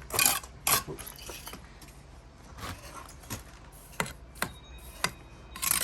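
Intermittent short scrapes and light metallic clinks of a bricklaying trowel working against brick and mortar, with a few sharper taps.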